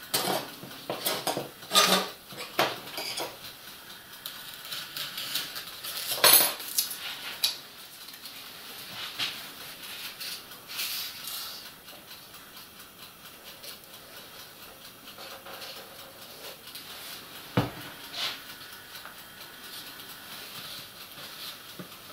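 Scattered clicks, taps and clatter of tools and small hard objects being handled and set down on a workbench, with a louder knock about six seconds in and a low thump near eighteen seconds.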